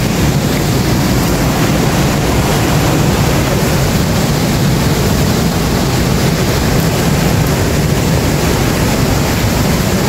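Steady rushing roar of a nearby waterfall, an even noise of falling water heaviest in the low rumble, with no breaks.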